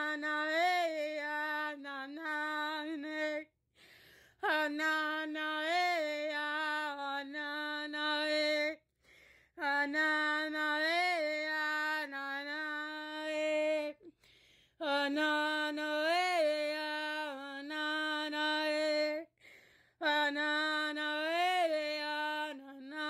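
A woman chanting wordless syllables unaccompanied, in four long phrases held on one steady pitch with a brief rise in the middle of each, separated by short pauses.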